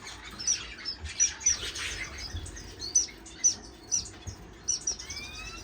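Many small caged finches chirping: a steady stream of short, high chirps overlapping from several birds, with one rising whistled note near the end.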